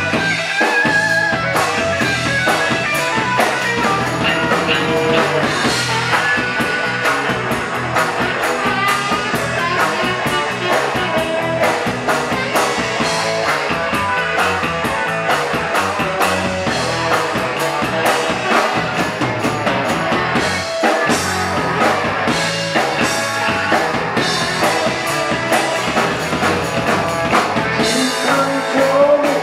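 Live rock band playing an instrumental passage: electric guitars, saxophone and drum kit together at a steady, driving beat.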